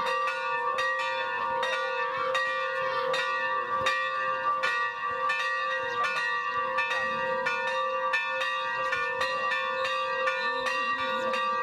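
Church bells ringing continuously, struck in quick succession about three times a second, their tones ringing on and overlapping.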